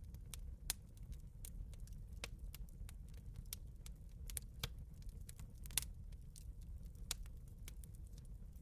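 Wood fire crackling: irregular sharp pops and snaps over a low rumble, with one louder snap about two-thirds of the way through.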